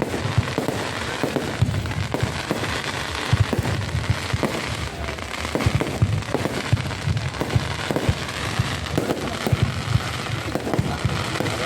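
Fireworks going off in a rapid, continuous string of bangs and crackles.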